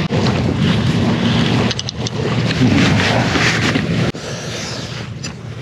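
Wind buffeting the microphone over sea and wave noise at a harbour seawall, with a steady low engine drone for the first second and a half and a few faint clicks.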